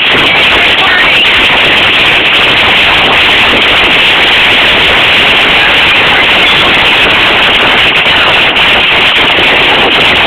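Hail pelting down in a loud, steady, dense clatter.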